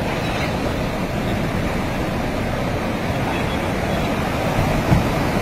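Teesta River in flood: fast floodwater rushing around a concrete pillar, a steady, even rushing noise. The river is at its danger level and still rising.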